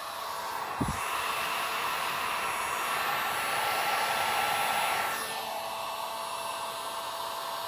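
Drillmaster heat gun blowing a steady rush of hot air at a plexiglass sheet being softened for bending; about five seconds in the rush drops to a quieter hiss. A low thump just under a second in.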